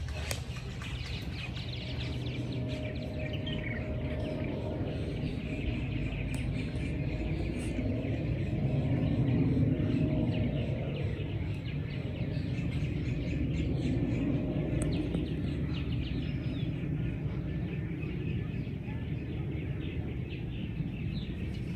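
Outdoor ambience of birds chirping and calling over a steady low rumble.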